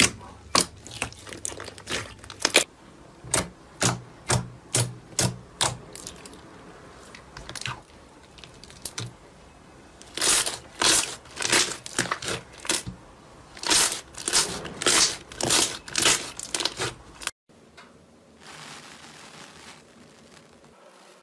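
Slime being squeezed and worked by hand, giving a string of sharp crackling pops, a few a second, with a louder, denser run in the second half. The sound cuts off abruptly near the end, leaving a faint hiss.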